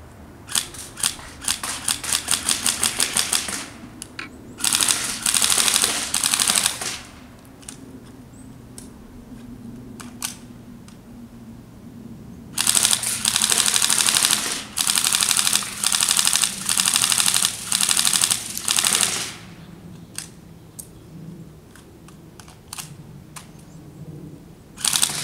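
Tokyo Marui Recoil Shock M4 CQBR electric airsoft rifle firing: a few single semi-auto shots, then rapid full-auto bursts, the longest lasting several seconds. Scattered single shots follow near the end.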